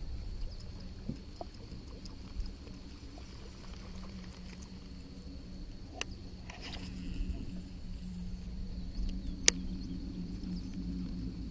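Outdoor ambience over a low wind rumble, with a steady low hum and a steady high-pitched whine, a few light clicks, and one sharp click about two seconds before the end.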